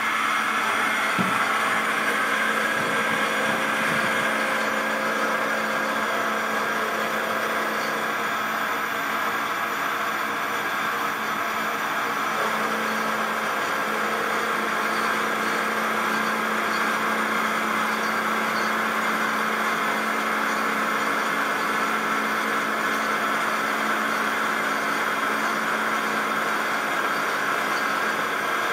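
Converted manual milling machine under CNC control, its spindle running while an end mill cuts metal and throws chips: a steady, even machining sound with a constant low hum.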